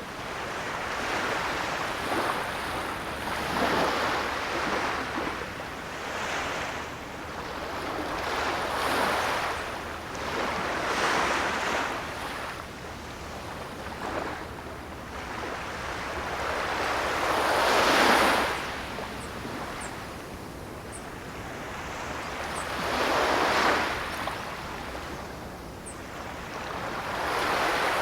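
Ocean waves breaking and washing on a shore, each surge swelling and ebbing every few seconds, with the biggest wave about two-thirds of the way through.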